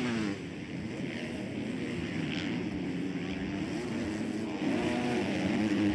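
Several motocross bikes racing past, their engines revving up and down as the riders work the throttle, growing louder about two-thirds of the way through.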